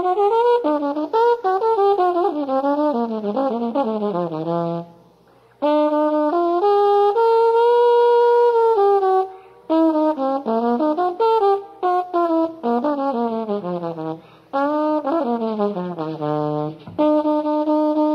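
Trombone playing an unaccompanied jazz solo: phrases of quick runs that mostly fall in pitch, broken by short pauses, with one long held note near the middle.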